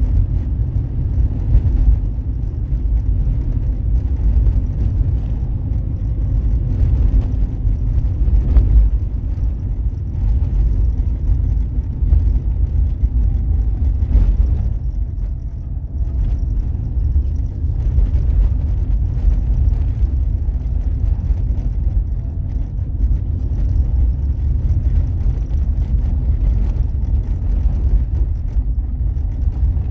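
A car driving: a steady low rumble of engine and road noise that eases briefly about halfway through.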